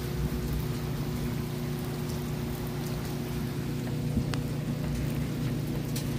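Steady rain falling, with scattered drops ticking sharply, over a steady low hum.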